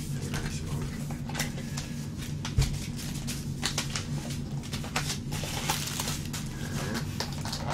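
Plastic takeout packaging being handled and unwrapped: crinkling bags and wrappers with many small clicks and crackles, and one louder thump about two and a half seconds in.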